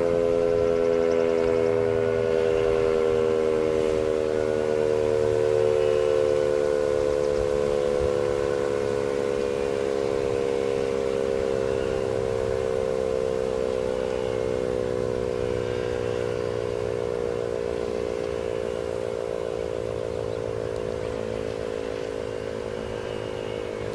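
Sentry 3V8 outdoor warning siren winding down at the end of its test: a steady wail sliding slowly lower in pitch and gradually fading.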